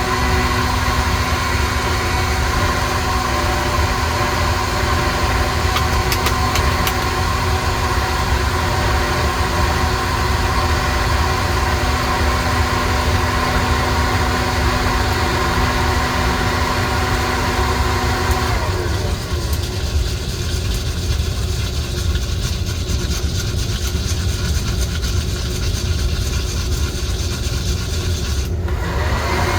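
Coffee roaster running steadily mid-roast, its drum and fan giving a constant rumble over a humming tone. The hum cuts out about two-thirds of the way through and comes back right at the end, and faint scattered clicks come through, mostly in the later part.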